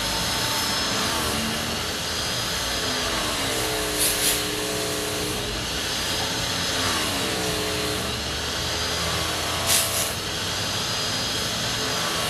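Leaf blower running steadily, its pitch dropping and rising again a few times as it is throttled, with a thin high whine on top. Two brief loud bursts of noise stand out, about four and ten seconds in.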